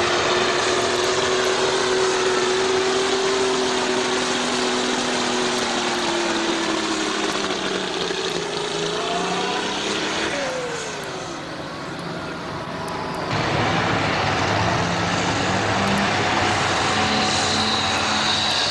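Modified pulling tractor's engine running hard as it drags a weight-transfer sled, its pitch sinking as the sled's load builds and the engine bogs down. It drops away about ten seconds in, and another pulling tractor's engine takes over loudly a few seconds later.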